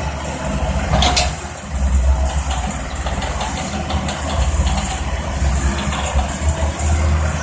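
Tracked excavator's diesel engine running steadily with a low pulsing rumble, with one sharp clank about a second in.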